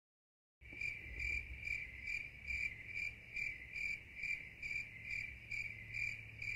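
A cricket chirping in a steady rhythm, about two and a half chirps a second, over a low electrical hum. It starts after a moment of silence.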